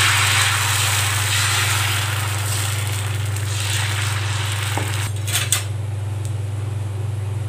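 Dosa batter sizzling on a hot iron tawa as it is poured and spread in circles with a steel ladle scraping over the pan. A few sharp clicks of the ladle come about five seconds in, after which the sizzle is quieter.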